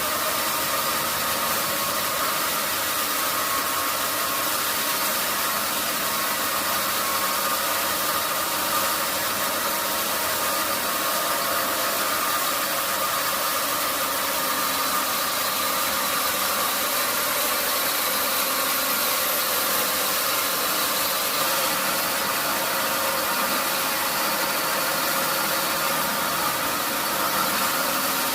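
Sawmill machinery running steadily: a constant hum with a higher whine over a wash of noise, unchanging throughout.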